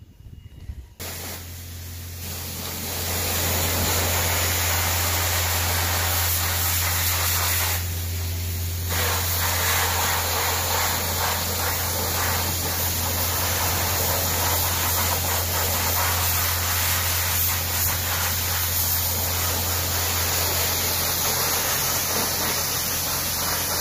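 High-pressure washer wand spraying water onto a muddy RC truck chassis: a steady, loud hiss of spray over a steady low hum. It starts about a second in, and the hiss drops briefly about eight seconds in.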